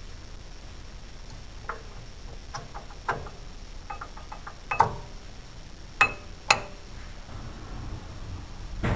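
A series of sharp metallic clicks and clacks as a disc brake pad fitted with anti-squeal shims and clips is handled and pushed into the caliper bracket. The three loudest clacks come in the second half.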